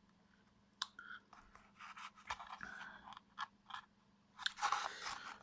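Crinkly packaging being handled: irregular small clicks and crackles, with a denser burst of rustling about four and a half seconds in.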